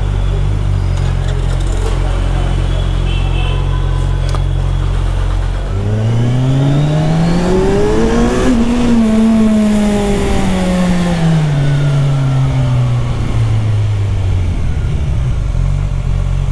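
Kawasaki Ninja 1000's inline-four engine idling steadily, then about six seconds in pulling away: its pitch rises smoothly for a couple of seconds and then falls slowly as the throttle is rolled off, settling back to a low steady note near the end.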